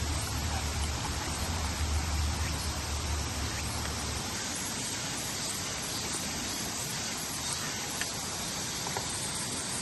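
Mountain stream water rushing in a steady wash. A low rumble sits underneath it and stops about four seconds in.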